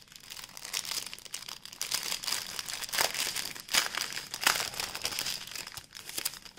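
Small clear plastic zip-lock bags of diamond-painting drills crinkling as they are handled, in irregular crackly rustles with a few louder crinkles in the middle.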